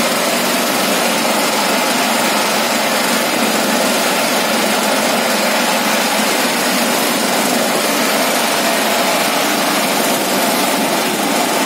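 An engine running steadily at a constant speed, an even, unbroken noise that does not change.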